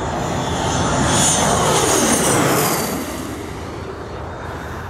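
BAE Hawk T1 jet's Adour turbofan passing low overhead on landing approach. The jet whine and engine noise swell to a peak about one to two and a half seconds in, drop in pitch as it passes, and fade away.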